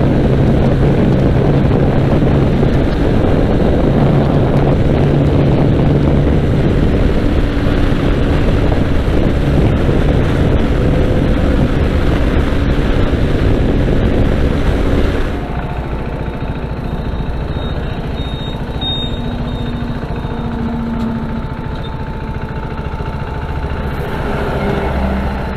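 KTM RC 390's single-cylinder engine running at cruising speed under heavy wind rush on the microphone. About fifteen seconds in, the level drops suddenly to a quieter, steady engine sound as the bike slows to an idle.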